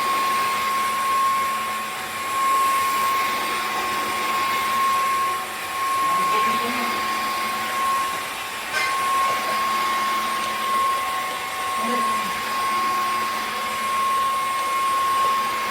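Dreame H12 Pro cordless wet-dry vacuum-mop running steadily, a rushing motor noise with a constant high whine, which cuts off suddenly at the end.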